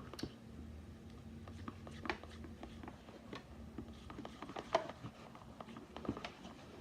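A utensil stirring a sticky slime mixture of white glue, shaving foam, liquid soap and baby oil in a small pot, giving faint, irregular clicks, taps and scrapes against the pot.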